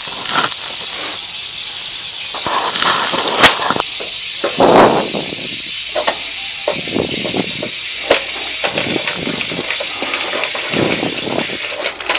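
Clicks, knocks and rustles of hands handling washer parts, over a steady hiss, with one sharp click a little over three seconds in.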